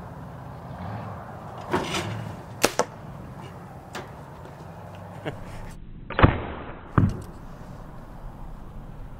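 Compound bow shooting flu-flu arrows at thrown foam discs: a run of sharp snaps and thwacks, two close together about two and a half seconds in, the loudest about six seconds in and another a second after it.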